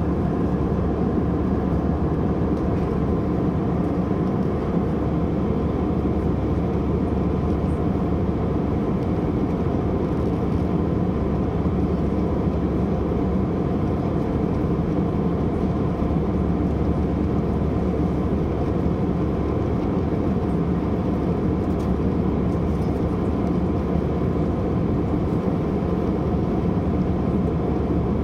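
Steady cabin noise inside an Airbus A320 in flight: the low, even roar of the jet engines and the air rushing past the fuselage, with a faint steady hum above it.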